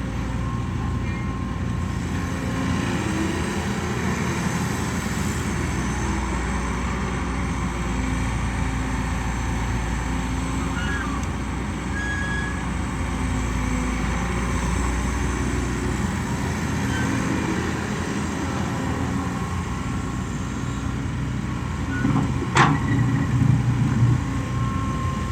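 Kobelco SK120 Mark 3 hydraulic excavator's diesel engine running steadily under load while digging and loading soil. About 22 seconds in there is a single sharp knock, then a couple of seconds of louder low rumbling.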